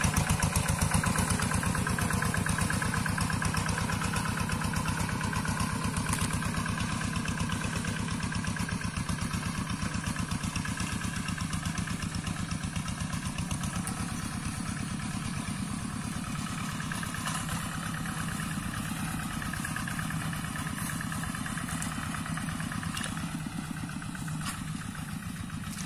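Quick G1000 two-wheel hand tractor's single-cylinder diesel engine chugging steadily under plowing load in a wet paddy, growing gradually fainter as it moves away.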